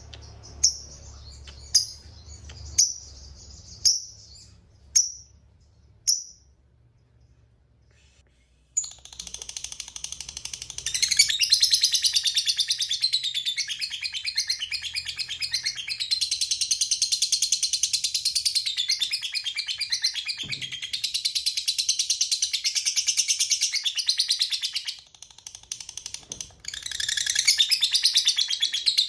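Lovebird giving six short, sharp chirps about a second apart, then breaking into a long, rapid, high-pitched chattering trill (the 'ngekek panjang'). The trill runs unbroken for about sixteen seconds, stops briefly, and starts again near the end.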